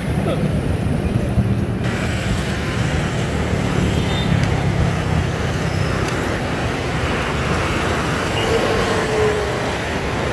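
Steady roadside traffic noise: a low, continuous rumble of passing vehicles beside a busy city street.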